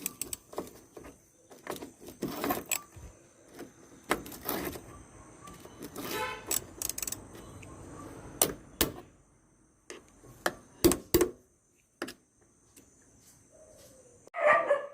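Metal clicks and clinks of a hand tool tightening the bolts of a car door lock, with a quick run of rapid clicks about six seconds in.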